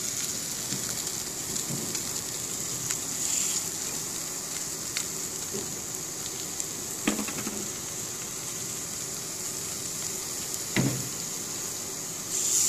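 Garfish fillets sizzling in hot olive oil in a non-stick frying pan: a steady high hiss with a few sharp clicks. Near the end the sizzle gets louder as a second fillet goes into the pan.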